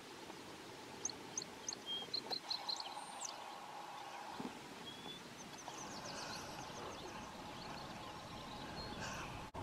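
Small birds chirping: a quick run of short high notes about a second in and a few more later, over faint steady outdoor background.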